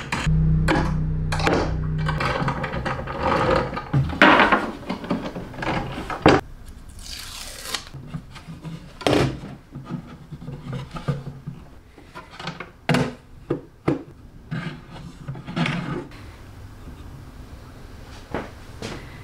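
Wooden parts of a poplar wall desk being handled and fitted: a string of irregular knocks and taps, with a rubbing scrape about seven seconds in.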